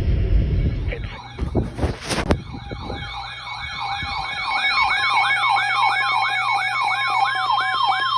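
Electronic siren yelping, its pitch sweeping up and down about three times a second, with a steady tone joining it near the end. A brief burst of noise comes before it, about two seconds in.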